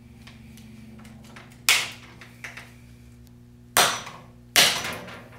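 Hammer striking the loosened bottom bolts of a RockShox Yari fork's lowers three times, each a sharp blow with a short ringing tail, to knock the damper and air spring shafts free of the lowers. The second and third blows come close together, under a second apart.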